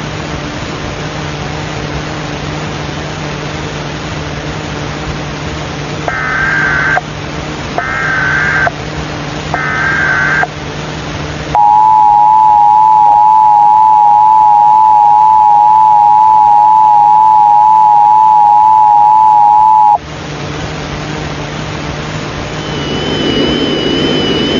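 Emergency Alert System broadcast sequence over a steady hiss and hum of static. About six seconds in come three short warbling data bursts of the EAS header with short gaps between them. Then the loud two-tone EAS attention signal sounds steadily for about eight seconds and cuts off, leaving the static hum.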